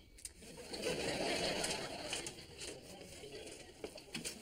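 Studio audience laughing: the laughter swells about half a second in, peaks for about a second, then dies down.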